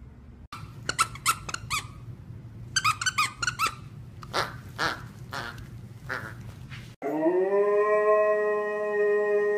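A husky chews a plush squeaky toy, its squeaker squeaking in quick runs of short squeaks. About seven seconds in, a husky takes over with one long howl that slides up in pitch and then holds steady.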